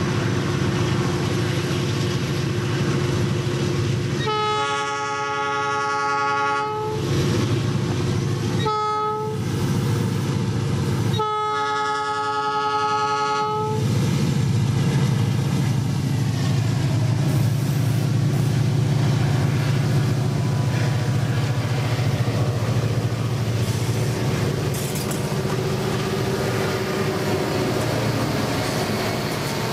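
Freight train's lead diesel locomotive sounding its air horn for a level crossing: a long blast about four seconds in, a short one about nine seconds in, and another long one about eleven seconds in. Under it the diesel engines of the locomotive consist run steadily, getting a little louder as the locomotives pass close by near the end.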